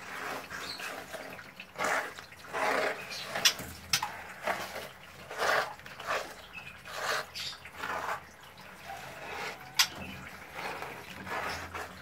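A hand scooping and smoothing wet, gritty sand, making an irregular series of wet scraping swishes about every second or two, with a few sharp clicks.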